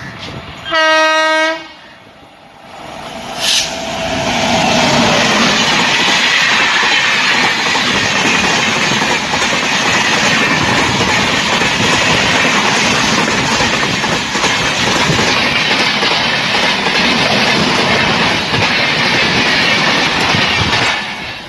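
The Pune–Hazrat Nizamuddin AC Duronto Express, an electric-hauled Indian Railways express, sounds one short horn blast about a second in, then passes close by at speed: a loud, steady din of wheels on rails that builds over a couple of seconds and holds until near the end.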